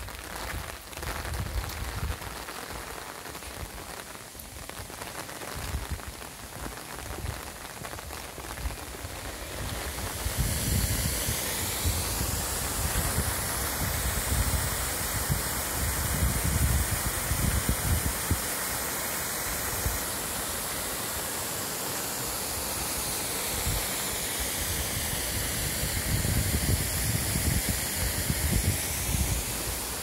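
Waterfall on a river: a steady rush of falling water that grows louder and fuller about ten seconds in.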